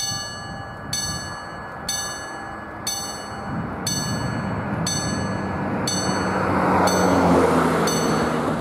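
Danish level-crossing warning bell striking about once a second, the signal that a train is approaching and the barriers are about to come down. A car drives over the crossing, its engine and tyre noise growing and loudest about seven seconds in.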